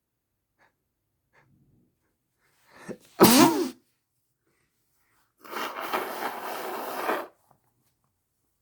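A person sneezing once into a handkerchief: a brief intake, then one loud, short sneeze with a falling voiced cry. About two seconds later comes a longer, rough, breathy sound lasting nearly two seconds.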